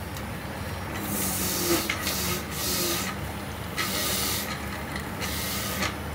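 Electric citrus juicer's motor humming steadily while orange halves are pressed onto its spinning reamer, giving several bursts of hiss, each under a second long, as the fruit is juiced.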